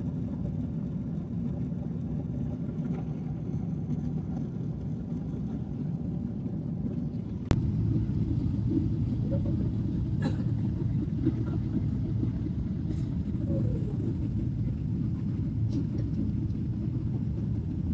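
Steady low drone of an airliner cabin in flight: jet engine and airflow noise heard from inside the cabin. About seven and a half seconds in there is a sharp click, and the drone is a little louder after it.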